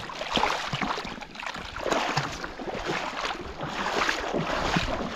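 Shallow seawater splashing and sloshing in irregular bursts as a shark, held by its tail, kicks and thrashes in ankle-deep water.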